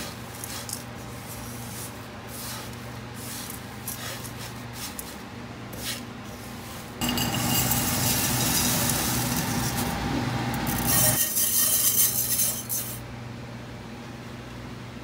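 Silicone spatula stirring rolled oats in a nonstick pan: faint scraping and rustling over a steady low hum. About seven seconds in, a much louder rushing hiss takes over for about six seconds, then drops away.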